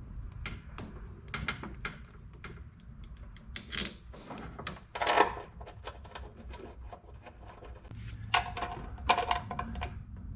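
Irregular clicks and clunks of metal parts and tools being handled, with a louder knock about five seconds in.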